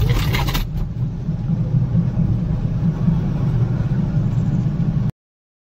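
Steady low engine and road drone inside a moving mini truck's cab, cutting off abruptly about five seconds in.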